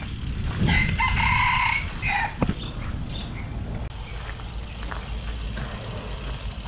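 A rooster crowing once, a long held call about a second in, followed by a single sharp click, over a low steady rumble.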